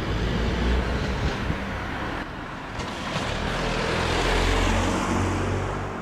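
Street traffic: a car passing by, its engine and tyre noise swelling to a peak about four and a half seconds in, then fading.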